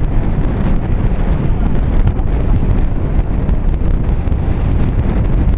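Wind buffeting the camera's microphone: a loud, unsteady low rumble that runs on without a break.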